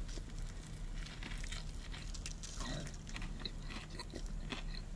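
Faint crunching and chewing as a man bites into a crispy-breaded fried chicken sandwich, a KFC Spicy Big Crunch Stacker, with small crackles scattered throughout.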